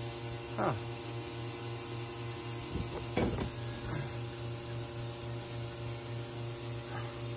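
Steady electrical mains hum with a buzzy edge of even overtones.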